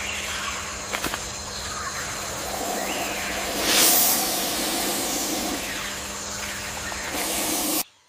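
Cobra hissing: a continuous hiss that swells to its loudest about four seconds in, then cuts off suddenly near the end.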